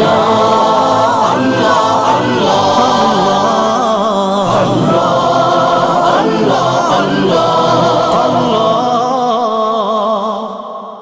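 A naat, an Urdu devotional song, sung by voices in drawn-out melodic lines with no clear words, fading out near the end.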